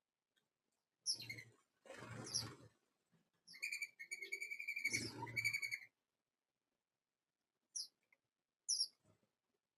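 Backyard birds calling: short, high chirps that sweep downward, a longer buzzy pitched call in the middle, and two more quick chirps near the end. Low rustling sounds under the louder calls.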